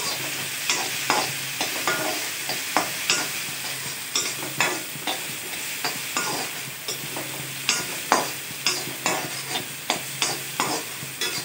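Finely chopped shallots frying in hot oil with mustard seeds in a kadai: a steady sizzle as they are sautéed toward the glassy stage. A perforated spatula scrapes and clicks against the pan about twice a second as they are stirred.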